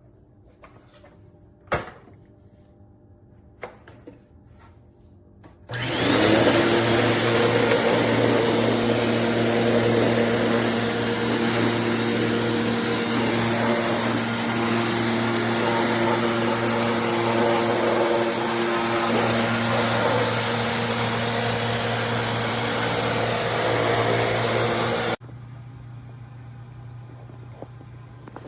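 Eureka NEU100C bagless upright vacuum cleaner: after a couple of sharp clicks, it switches on about six seconds in and its motor runs steadily for about twenty seconds. It then cuts off abruptly, leaving a quieter hum.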